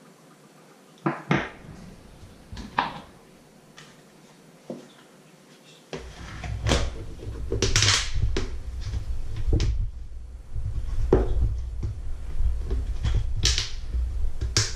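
Knocks, clicks and scrapes of a white plastic bucket and its lid being handled on a wooden worktop, joined from about six seconds in by a low, uneven rumbling throb.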